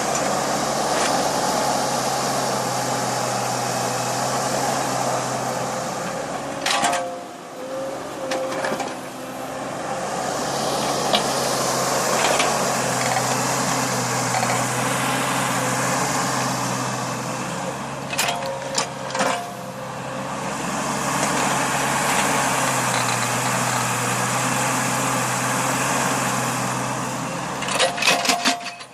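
Small backhoe's engine running steadily while it digs, swelling twice in long stretches as the hydraulics work under load. A few sharp metallic clanks come in between the swells, about a third of the way in, around two-thirds of the way in, and near the end.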